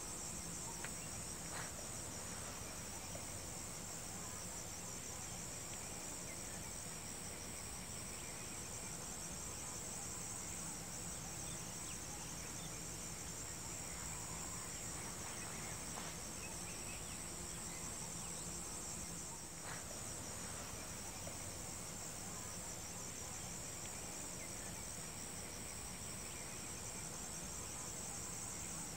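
Steady, high-pitched chorus of insects chirring without a break, with a faint tick or two.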